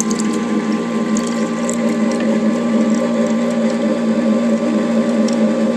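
Electric ice cream maker's motor running with a steady hum, turning the paddle in the frozen freezer drum, while the liquid lemon sorbet mixture is poured in.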